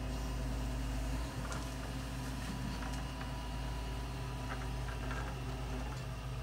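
Excavator's diesel engine running steadily, with a few faint knocks.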